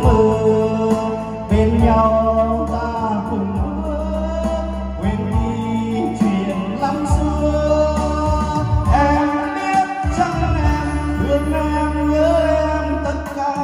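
A man sings a Vietnamese song into a handheld microphone over a karaoke backing track with a heavy bass, both played loud through a large event PA system that is being set up and tested.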